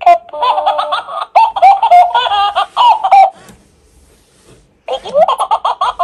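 Interactive plush Peek-a-boo bunny toy playing its recorded voice and laughter through its small speaker, high-pitched, in two bursts with a pause of about a second and a half in the middle.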